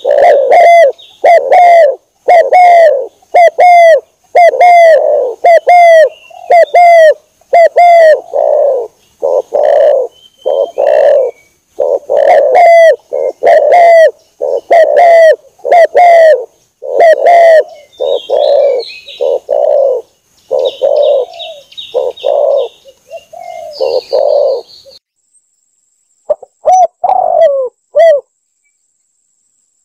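Spotted dove (tekukur) cooing, a long run of repeated coo notes, about one or two a second. They stop about 25 seconds in, and a few more notes come near the end. Fainter, higher chirping runs under the last part of the cooing.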